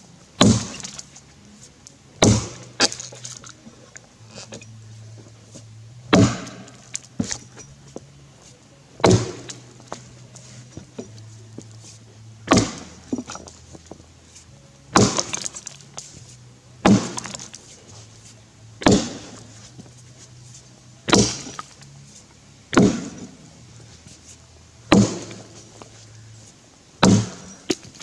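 Tassie pattern axe chopping into a Grey Gum log, about fourteen sharp strikes roughly every two seconds, some in quick pairs.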